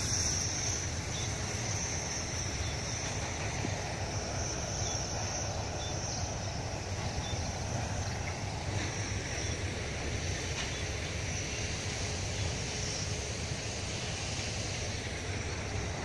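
Steady outdoor background noise: a low rumble with a high, even buzz over it, unchanging throughout and without any distinct events.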